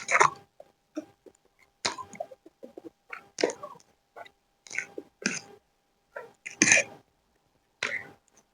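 Close-miked eating sounds of chicken chow mein being chewed: short, wet mouth noises at irregular spacing, roughly one a second.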